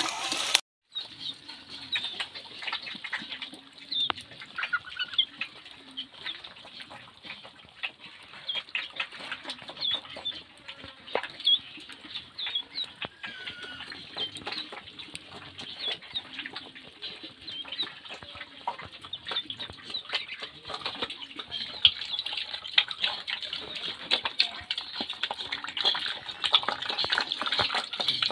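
Farm animals eating: many small clicks and smacks of pecking and chewing at feed, with a few short calls from ducks or chickens.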